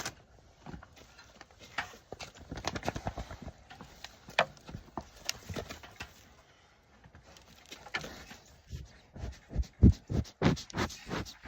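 Goats moving around close by: irregular hoof knocks and scuffs with rustling, and a run of louder low thumps near the end.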